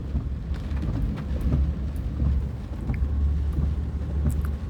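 Low, steady rumble of a car driving, heard from inside the cabin, with a few faint clicks.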